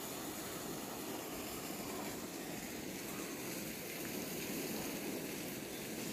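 Steady rush of water spilling over the top of an overflowing stone water tank and falling to the ground.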